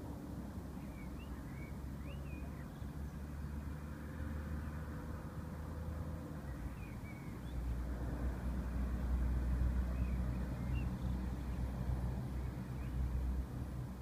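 Low rumble of distant road traffic, swelling about eight seconds in and easing near the end, with a few faint high chirps.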